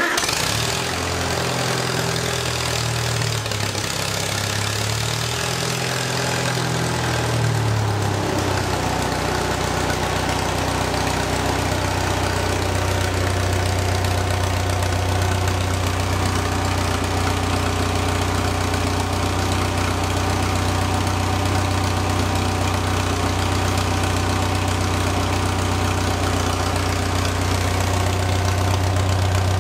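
Farmall 140 tractor's C-123 four-cylinder engine running through a straight exhaust pipe with no muffler. Its speed rises and falls a few times over the first eight seconds or so, then settles to a steady, even run.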